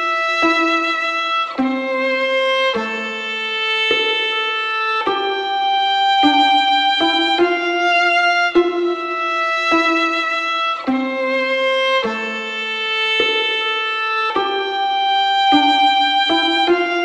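Instrumental music: a violin playing a melody of held notes, moving to a new note every second or so.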